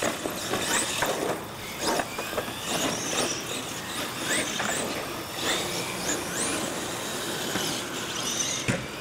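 Radio-controlled monster trucks racing on concrete: high-pitched motor whines rising and falling as the throttle is worked, with tyre noise and several sharp knocks.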